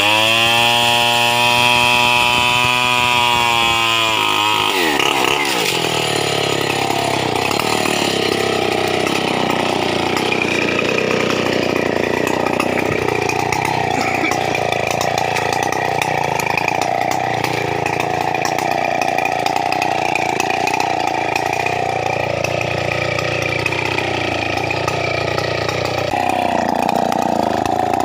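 Stihl 070 two-stroke chainsaw running at high revs, which drop sharply about four seconds in. It then runs on at lower, wavering revs.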